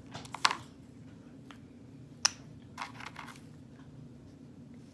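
A few small clicks and taps of a plastic paint bottle and a paintbrush being handled, the sharpest about half a second in and again just past two seconds, with a short run of lighter clicks around three seconds, over a steady low hum.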